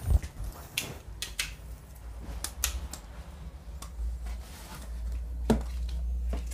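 Scattered light clicks and knocks from a handheld phone camera being moved about, and from footsteps beside a mattress on a tiled floor, with a low rumble of handling noise from about four seconds in.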